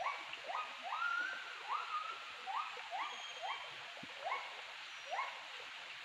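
A Javan gibbon singing a run of rising whooping notes, about two a second. Two of the notes about a second in are longer and drawn out.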